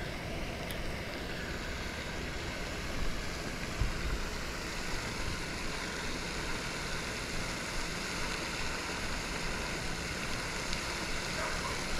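Steady wind noise buffeting the microphone, with brief low gusts now and then.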